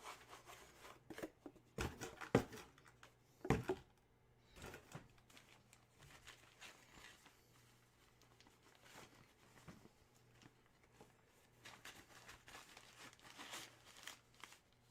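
Packaging being torn and crinkled open by hand. It comes as a few short, faint rustles and crackles about two and three and a half seconds in, with softer rustling near the end.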